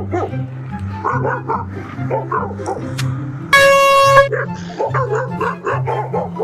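An air horn blasts once for under a second about halfway through, loud and on a single steady pitch. It sounds over background music with a steady bass line, and a dog barks and yips around it.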